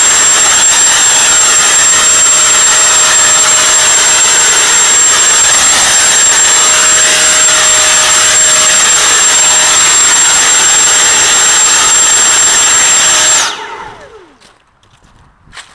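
Homemade leaf blower running at full power: a steady rushing blast of air with a high steady whine over it. About 13 seconds in it shuts off and the whine falls in pitch as it spins down.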